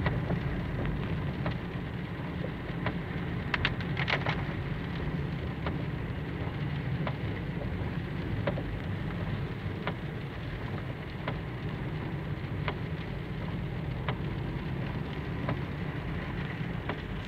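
Steady low rumble of a car's engine and tyres on a wet road, heard from inside the cabin, with scattered light ticks across it.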